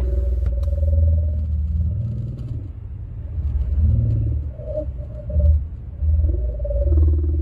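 Strange wavering tones from a car radio that slide up and down and swell and fade, over the low rumble of a car driving.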